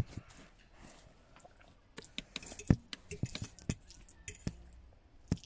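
Irregular light clicks and knocks, a few louder than the rest, the loudest about two and a half seconds in.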